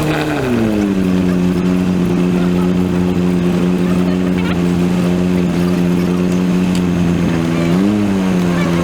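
Cessna 172 piston engine running in the cockpit. Its pitch drops as the power comes back in the first second, then holds steady, with a brief rise and fall near the end. The recording is sped up three times, so the engine sounds higher and faster than in life.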